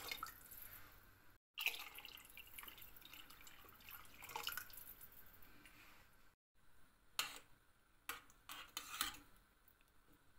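A stream of water splashing as it is poured into a steel pot of soup broth, with two short breaks. Near the end come a few light knocks of a ladle against the pot as the broth is stirred.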